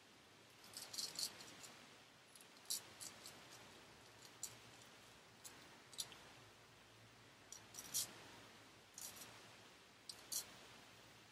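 T.R. Cadman & Sons 'Bengall' hollow-ground straight razor cutting through lathered stubble: a series of short, crisp, scratchy strokes, about one a second, each lasting a fraction of a second.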